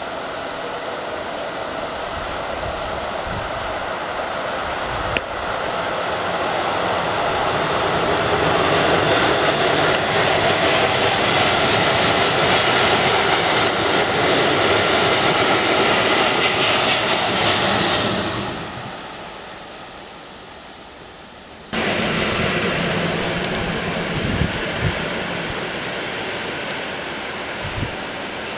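Freight train of tank wagons rolling past, a steady rumble of wheels on rail that builds up, holds, then fades away about 18 seconds in. After an abrupt cut a little past 21 seconds, a passenger train is heard running along the line, its rumble easing off toward the end.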